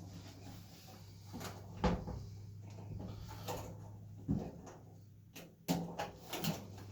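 Plastic wiring-harness connectors on a Samsung dryer's control board being squeezed, wiggled and pulled off, giving scattered clicks and knocks over a steady low hum.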